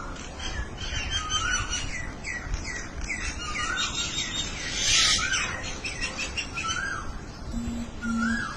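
Several birds calling. A repeated rising-and-falling whistle comes about once a second over a mix of many short chirps, with a loud harsh call about five seconds in and two short low tones near the end.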